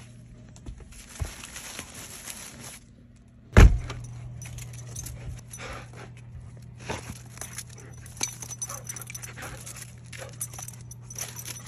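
Paper and dry hay rustling as a paper-wrapped treat is pushed into a rabbit's hay rack. After a sharp thump, a dog's collar tags jingle in irregular clicks as it moves about, with footsteps, over a steady low hum.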